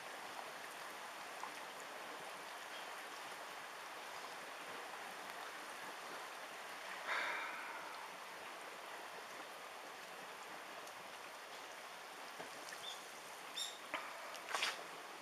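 Tsunami floodwater flowing through a street around a half-submerged car, a faint steady rushing hiss. A brief louder sound comes about seven seconds in, and a few sharp clicks come near the end.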